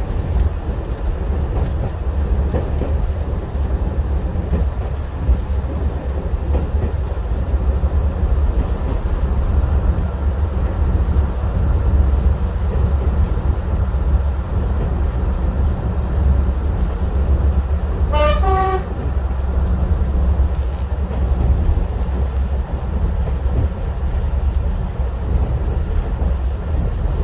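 Class 121 diesel railcar running steadily, a low rumble of engine and wheels heard from inside the driver's cab, with one short horn blast about two-thirds of the way through.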